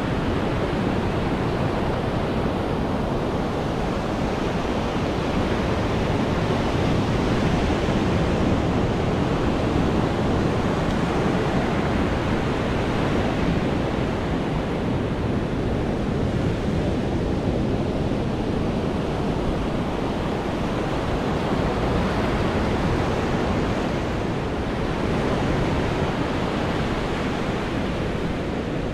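Ocean surf breaking and washing up a sandy beach: a steady rushing that swells and eases with the waves, with wind on the microphone.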